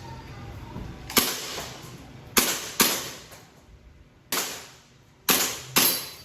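Airsoft gun fired six single shots at an uneven pace, each a sharp crack that rings off briefly in the room.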